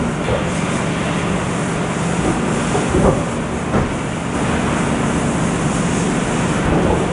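Steady machinery running with a low hum, while wooden blocks knock and thud as they are tossed into a truck bed, the clearest knocks about three seconds in and again just before four seconds.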